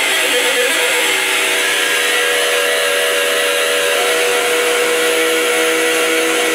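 Electric guitar with heavy metal distortion through an amplifier, giving a dense, noisy drone. About a second and a half in, a single steady feedback tone comes in and holds without fading.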